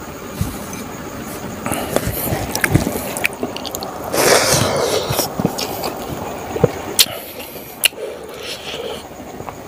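Close-up eating sounds of a man eating rice and smoked pork by hand from a banana leaf: fingers scooping and squishing the rice, chewing and lip-smacking, with scattered sharp clicks. A louder burst of mouth noise about four seconds in as a big handful goes into his mouth.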